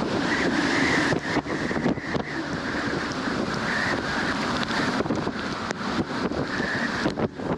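Strong storm wind howling in gusts: a whistling howl swells and fades several times over a rush of wind buffeting the microphone.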